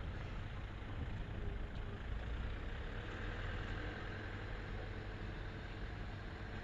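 Steady low mechanical rumble, like an engine running, with a haze of noise over it.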